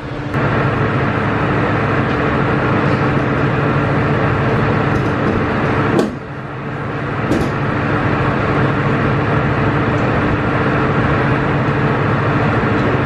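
A steady, loud mechanical hum with a few fixed tones, broken briefly about six seconds in.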